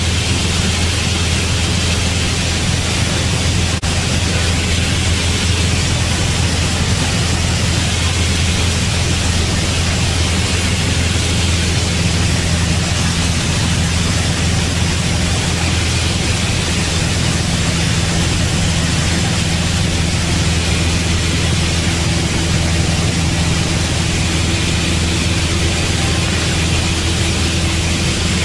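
Piper light aircraft's piston engine and propeller droning steadily in the cabin, with a constant airflow hiss over it.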